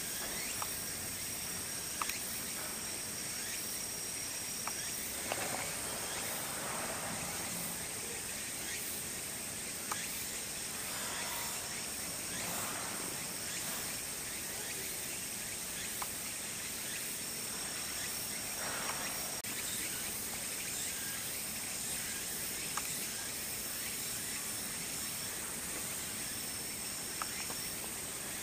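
Outdoor evening ambience dominated by a steady, high-pitched insect trill, with a second, lower trill coming and going. Scattered faint clicks and brief rustles sound over it.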